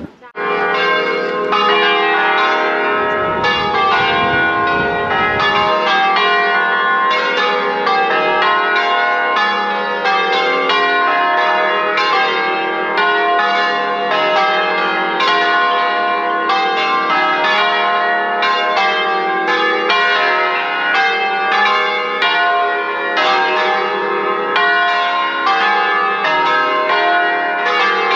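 Church bells ringing in a continuous peal, many strikes following one another closely and overlapping.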